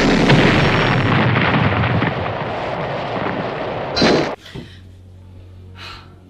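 Loud explosion sound effect: a long, noisy blast lasting about four seconds that cuts off suddenly, leaving only a faint low hum.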